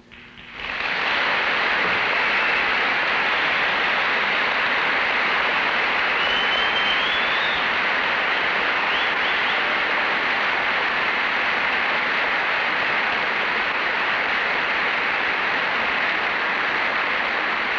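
Large audience applauding, a dense, steady clapping that swells up about half a second in and holds without a break, with a short rising whistle about six seconds in.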